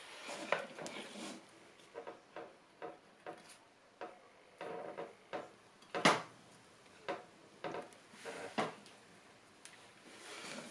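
A knife spreading whipped cream around the side of a cake, with short scrapes and clicks against the plate, about two or three a second. The sharpest click comes about six seconds in.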